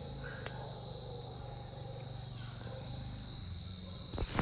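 Steady, high-pitched chorus of night insects, crickets, holding several unbroken tones at once. A short rustle comes in near the end.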